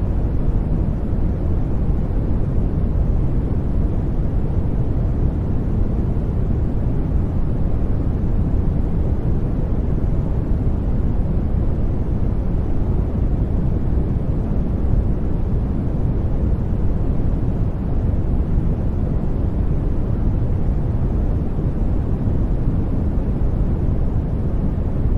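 Steady, unchanging noise for sleeping, deep and rumbling rather than hissy, with no breaks or events.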